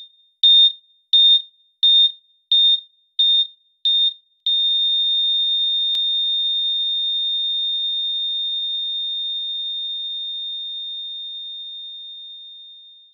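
Electronic beeping: one high pure tone beeps about every 0.7 s, seven times. It then holds as a single continuous tone that slowly fades away over about eight seconds.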